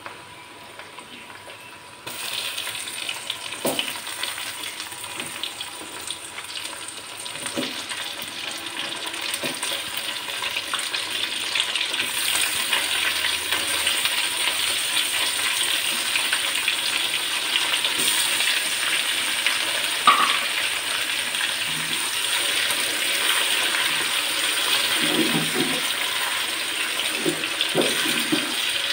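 Raw chicken pieces sizzling in hot oil with fried onions in a karahi. The sizzle jumps up about two seconds in as the chicken hits the oil and grows steadily louder, with a few knocks as the pieces are stirred.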